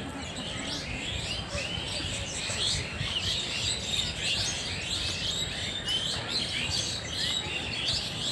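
Many small birds chirping at once, short quick calls overlapping in a busy chorus, over a low steady rumble.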